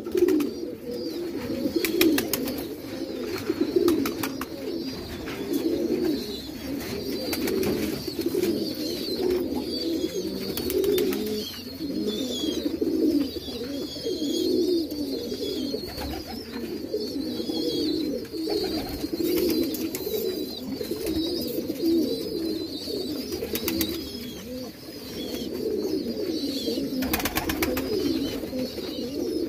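A flock of domestic fancy pigeons cooing, many low coos overlapping without a break. A fainter high chirping sounds above them, and a short burst of noise comes about two seconds before the end.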